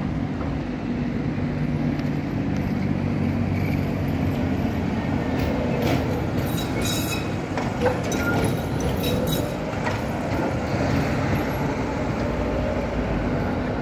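Tatra KT4YU articulated tram passing close by at low speed, a steady hum under street noise. Its wheels click over the rail joints and points about halfway through.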